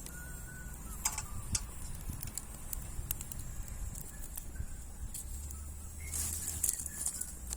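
Wood burning in a wood gas stove: sharp crackles and pops over a steady low rumble of the fire, with a few faint short high chirps.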